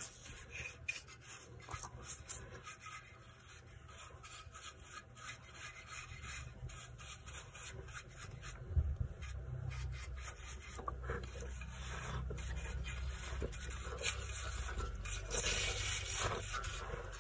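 Paintbrush bristles sweeping dust off a GeForce GTX 1060 graphics card in a run of quick scratchy strokes. There is a single knock about nine seconds in, and a low rumble after it.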